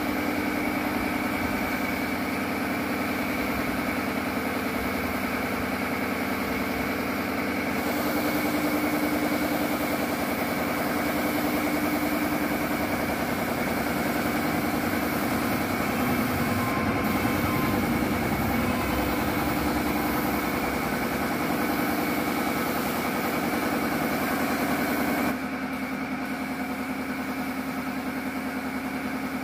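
An air compressor running steadily with a steady hum, along with the hiss of a gravity-feed spray gun spraying primer and filler coat onto a motorcycle fuel tank. The tone of the hum changes abruptly about 8 seconds in and again near the end.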